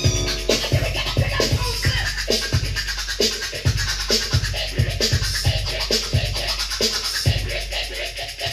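Hip hop track with turntable scratching: short, quick back-and-forth scratches over a drum beat and bass, about two beats a second.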